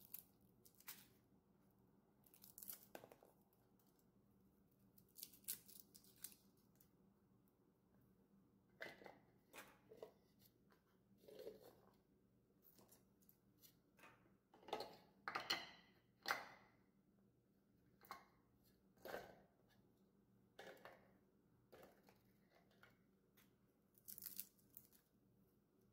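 Dry, papery garlic skins crackling and tearing as cloves are peeled by hand, in short scattered bursts. A few louder taps and clicks come around the middle.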